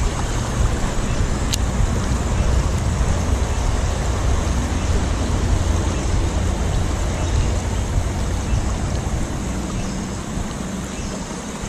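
Steady rushing of a shallow stream flowing around the wader, under a heavy low rumble, with a single sharp click about a second and a half in.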